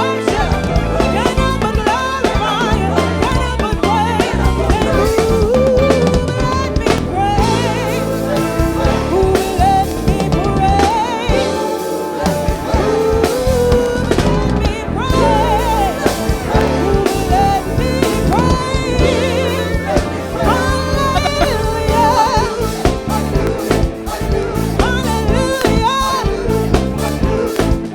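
Gospel praise-and-worship music: a singing voice carries the melody over a band with a drum kit playing a steady groove. The low end drops out briefly about twelve seconds in.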